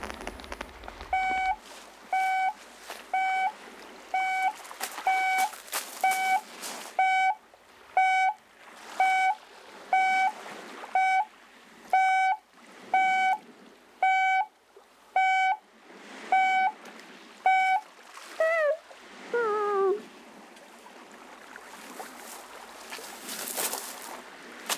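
Electronic beeping: a steady pitched tone about once a second, some seventeen times, then two longer beeps that slide down in pitch as if the device is running down.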